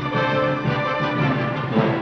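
Background film score music, with many instruments sounding together.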